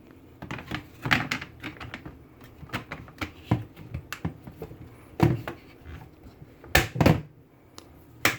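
Plastic clicks and knocks as the cover plate of a car's AC control switch panel is handled and pressed on until its clips snap into place, with several louder knocks scattered through.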